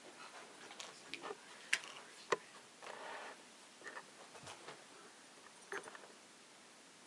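Scattered light clicks and knocks with faint rustling in a quiet room; two sharp clicks a little over half a second apart, about two seconds in, are the loudest.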